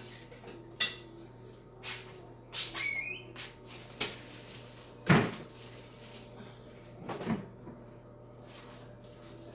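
Kitchen cupboard doors opening and closing, with scattered knocks and clunks a second or two apart and a brief squeak about three seconds in; the loudest clunk comes about five seconds in.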